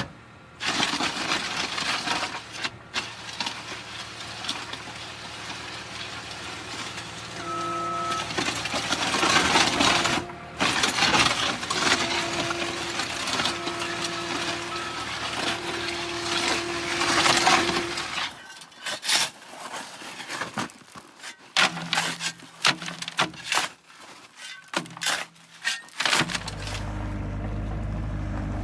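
Clattering and scraping work noise, with a machine's engine running at times, in several short clips cut one after another; a steady low engine hum takes over near the end.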